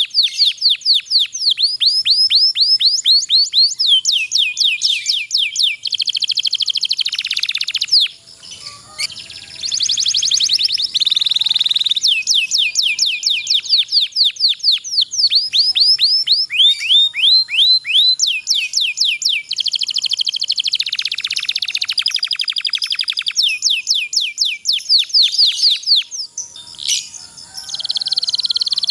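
Domestic canary singing a long rolling song: fast trills of rapidly repeated down-sweeping notes, switching from one trill to another every second or two, with a short break about eight seconds in.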